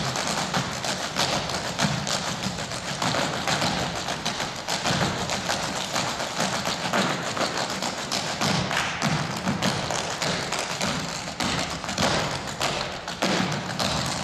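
A clogging team dancing a cappella, with no music: many metal shoe taps striking the stage floor in rapid, unison rhythms, a dense clatter of taps and heavier stomps.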